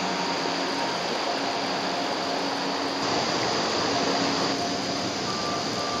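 Clear mountain stream rushing over granite boulders in shallow rapids, a steady even rush of water.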